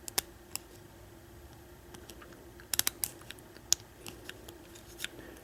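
Scattered light metallic clicks, some in quick pairs, of a pick and tension wrench working the pins of a six-pin Kwikset Titan lock during single pin picking, over a faint steady hum.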